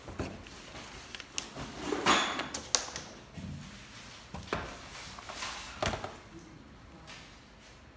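Paper drawing sheets and small objects being handled on a desk: rustling, with a handful of sharp knocks, the loudest about two and a half seconds in.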